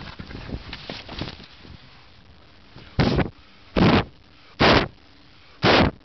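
Four loud puffs of breath straight onto the camera's microphone, a little under a second apart, after a second or two of rustling camera handling.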